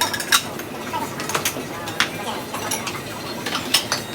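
Irregular sharp clicks and clinks of utensils and tableware during a table-grill barbecue meal, over a steady background hum.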